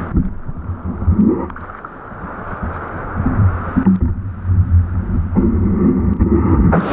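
Muffled rumble and sloshing of shallow surf water around a metal detector being swept through the waves, with a few short knocks of handling on the detector shaft.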